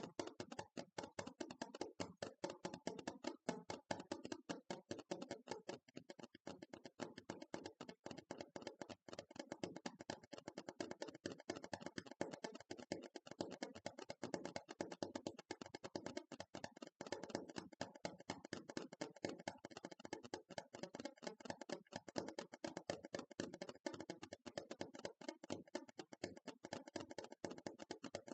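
ASMR tapping: rapid, continuous light taps, many a second, keeping an even pace throughout.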